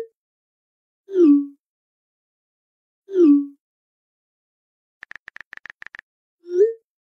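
Text-message sound effects: four short pitched blips as chat messages pop up, two gliding down and two gliding up in pitch, with a quick run of about nine keyboard-tap clicks about five seconds in.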